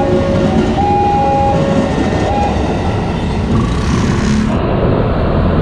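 KRL commuter electric train passing close by, a loud steady rumble. For the first two and a half seconds a series of steady tones at three different pitches takes turns over it, then stops.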